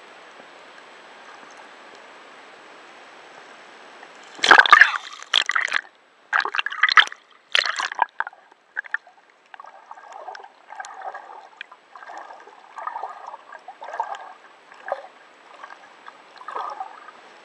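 Water splashing and sloshing: a steady hiss, then a run of loud surges about four to eight seconds in, followed by smaller repeated splashes about once a second.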